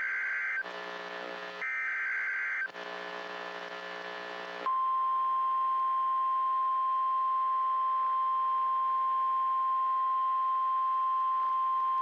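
NOAA Weather Radio emergency alert: two buzzy, screeching SAME digital header data bursts, about a second each, with radio hiss between them. About four and a half seconds in, the steady 1050 Hz warning alarm tone begins and holds unbroken.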